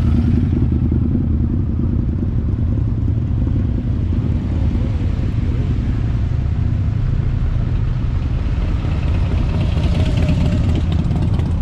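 Steady low rumble of motorcycle and car engines in slow traffic, heard from inside a vehicle. A motorcycle running close alongside adds its engine sound near the end.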